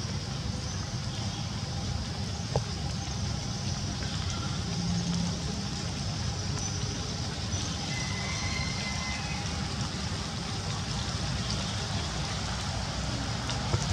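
Steady outdoor background noise with a low rumble throughout, with one faint click about two and a half seconds in.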